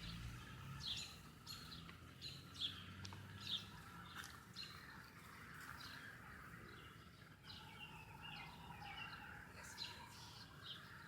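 Faint birds chirping, with short high calls repeated every half second or so and more warbling later, over a low steady background hum.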